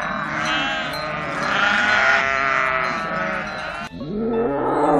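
A flock of goats bleating, several calls overlapping. About four seconds in it cuts to a tiger's low roar that falls in pitch.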